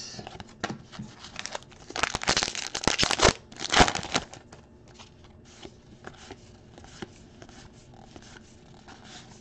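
A 2023 Topps Allen & Ginter trading-card pack being torn open, its wrapper crinkling in two loud bursts about two and four seconds in. Softer rustling of the cards being handled follows.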